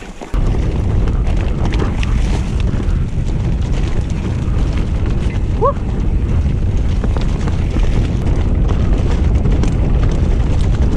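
Heavy wind buffeting the microphone over the rumble and rattle of a mountain bike rolling fast down a dirt singletrack.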